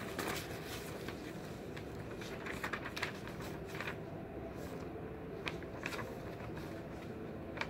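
Sheets of paper rustling and crackling as pages are flipped and leafed through a folder, in several short spells over a steady low room hum.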